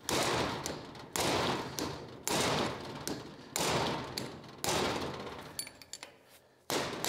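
Hammer striking a brass drift set against the threaded inner ring of a large hydraulic bottle jack's top: six metallic blows about a second apart, each ringing out briefly, driving the ring round to loosen it.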